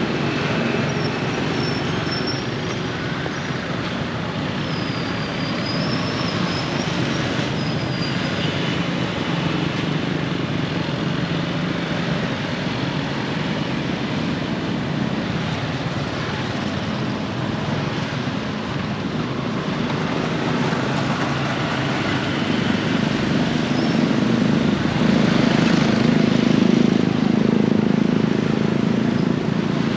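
Steady rumble of road traffic that grows a little louder after about twenty seconds, with a few faint high bird chirps in the first several seconds.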